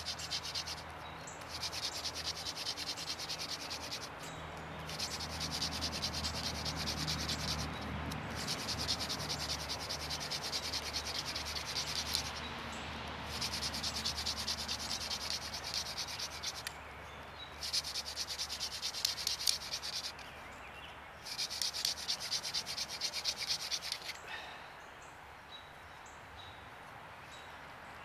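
Horseweed hand drill spun between the palms in a basswood hearth board: a fast, high rasping friction in runs of about three to four seconds, with short breaks as the hands go back to the top of the drill. The drilling is grinding hot dust to raise an ember, and it stops about 24 seconds in.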